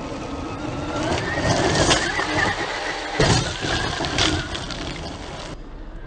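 Traxxas X-Maxx electric RC monster truck's brushless motor whining up in pitch as it accelerates, its tyres spraying gravel. There is a loud gritty burst about three seconds in.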